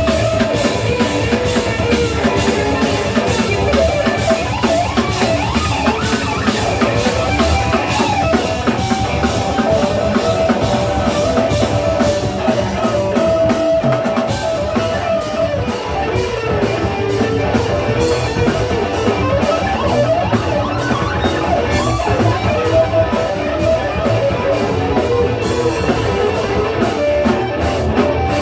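Live rock band playing an instrumental passage on drum kit and guitars, loud and dense throughout.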